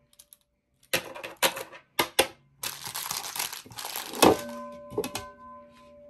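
Bowls and objects knocked and shuffled on a tabletop, made on purpose to mislead listeners whose eyes are closed. There are a few sharp knocks, then a second or so of crinkling rustle, then a ceramic bowl knocks down and rings for about a second and a half.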